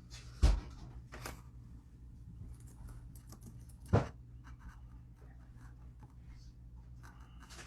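Two sharp knocks about three and a half seconds apart, with light scratching and rustling handling noises between them, over a steady low hum.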